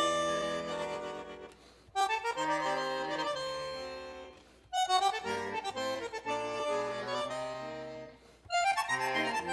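Instrumental background music in slow phrases. Each phrase starts suddenly on a chord and fades away over two to three seconds.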